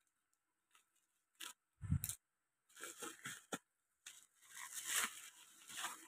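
Packaging being handled and opened by hand: a click, a thump about two seconds in, then scratchy rustling and tearing that grows longer towards the end.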